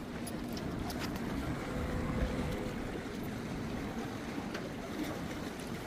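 Steady rush of wind and water aboard a felucca under way, heaviest in the low range, with a few faint clicks.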